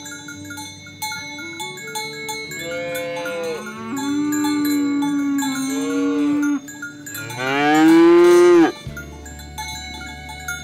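Cow mooing twice: a long, steady moo, then a louder, shorter one that rises in pitch and cuts off suddenly.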